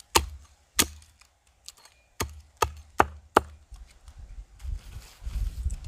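Hatchet chopping the end of a wooden stake held upright, trimming it to a point: about six sharp chops in the first three and a half seconds, followed by a low rumbling noise.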